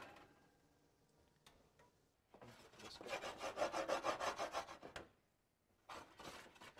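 Stainless steel sauté pan of sauce shaken rapidly back and forth on a glass-ceramic electric cooktop, its base scraping over the glass. The scraping starts about two seconds in, lasts a little under three seconds, and comes back briefly near the end.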